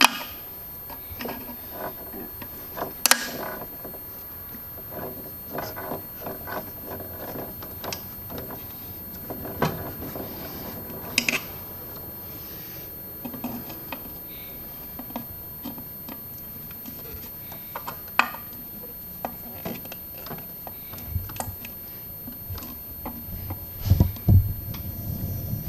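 Scattered metal clicks, light knocks and rubbing from pliers and parts being handled in an engine bay as the coolant hose clamps are worked loose, with a few dull thumps near the end.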